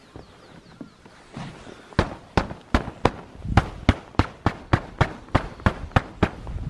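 A rapid, regular series of sharp knocks, about three a second, starting about two seconds in.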